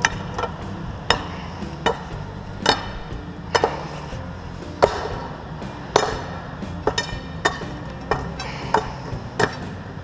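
Metal bar knocking repeatedly at the tap hole of a homemade cupola furnace as the spout is plugged shut: about a dozen sharp, uneven knocks, roughly one a second, some with a short metallic ring.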